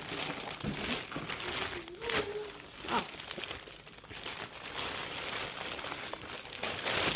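Plastic packaging crinkling and rustling in an irregular stream, with small clicks, as a boxed action figure is unwrapped by hand.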